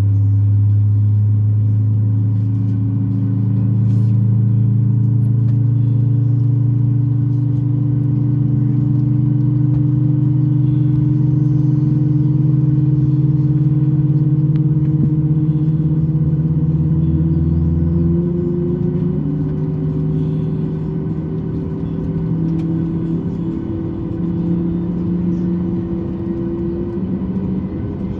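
Boeing 737 MAX 8 jet engines (CFM LEAP-1B) heard from the cabin: a steady hum whose pitch rises slowly for about eighteen seconds, then a low tone drops out and the sound eases slightly.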